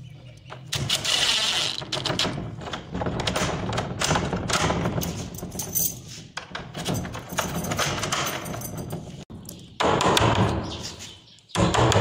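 Cordless impact driver driving screws into a door lock's faceplate in wood, with clattering knocks. In the last couple of seconds, sharp taps of a chisel cutting a small mortise in the wooden door edge.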